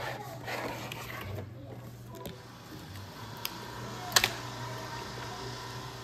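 Plastic cake collar and tray being peeled away from a frozen tiramisu torte, crackling and clicking, with one sharp plastic snap about four seconds in.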